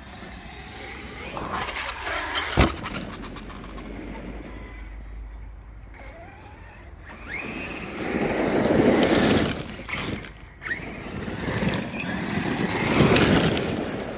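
Traxxas X-Maxx brushless RC monster truck on 8S power accelerating hard on loose dirt and gravel: a rising electric-motor whine and the noisy spray of spinning tyres throwing grit, in two bursts about four seconds apart. There is a sharp knock a couple of seconds in.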